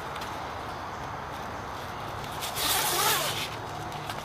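Nylon strap webbing pulled quickly through a loop on the cart frame, a single zipping rush of about a second, starting about two and a half seconds in.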